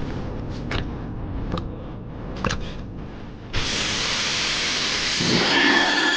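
A few light clicks, then, about three and a half seconds in, a loud steady hiss of air or spray starts abruptly and keeps going.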